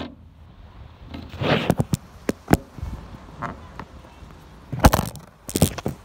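Handling noise from the camera: a run of sharp knocks and short rubbing scrapes as it is moved and set back down on a wooden picnic table. The loudest knocks come about halfway through and again near the end.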